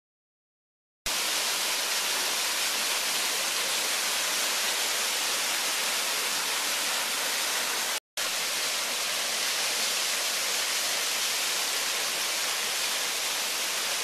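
Steady rushing of water: a mountain stream running over rocks, then a small waterfall. The first second is silent, and the sound drops out briefly about eight seconds in.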